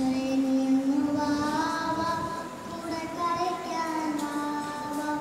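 A young girl singing a Malayalam song solo into a microphone, holding long, drawn-out notes.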